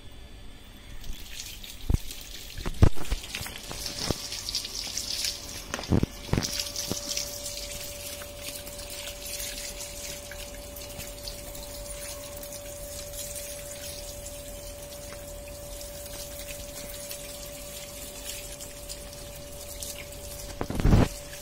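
Water running from a tap and splashing onto a wet, lathered dog and the concrete floor, with a few sharp knocks.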